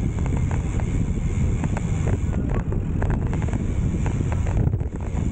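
Wind rumbling steadily on an action camera's microphone while cycling at speed.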